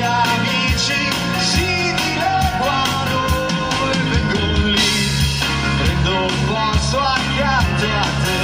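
Live rock band playing: a male singer over drums, electric guitars and keyboard, with a steady drum beat, played through PA speakers.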